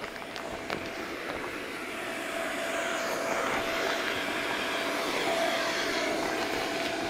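Electric bounce-house blower running: a steady whine over rushing air that grows louder over the first few seconds, as it fills a bouncer that is not fully inflating.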